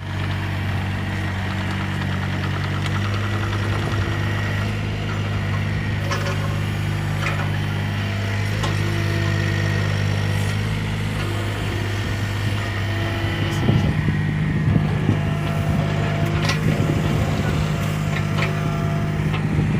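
NT18 excavator's Yanmar diesel engine running steadily, its note shifting in pitch a couple of times, with scattered clanks that come more often in the last third.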